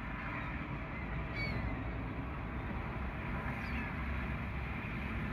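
A few faint, short gull calls (near the start, about a second and a half in, and near four seconds) over a steady low rumble of wind on the microphone.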